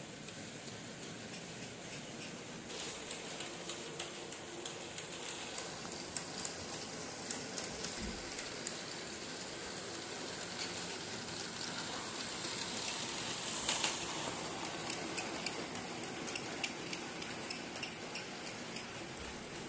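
OO-scale model goods train, double-headed by model BR 9F and 4MT locomotives, running on the layout track: a steady rushing hiss of wheels and motors with irregular clicks of wheels over rail joints. It gets louder about two-thirds of the way through as the train passes close.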